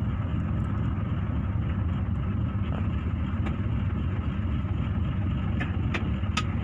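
Steady low rumble of a coach bus's diesel engine and road noise, heard from inside the driver's cab while under way, with a few light clicks or rattles near the end.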